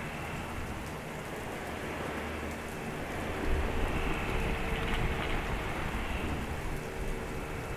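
Heavy rain falling steadily, with a low rumble of thunder rolling in about three and a half seconds in.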